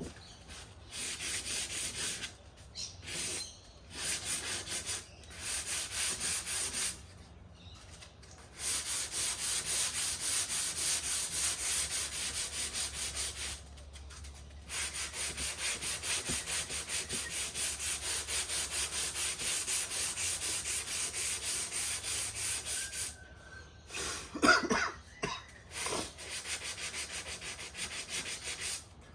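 A sanding block rubbed by hand back and forth over a car body panel, blocking back the paint in quick even strokes, about three a second, in several bouts with short pauses. Near the end come a few short, sharp sounds that are louder than the sanding.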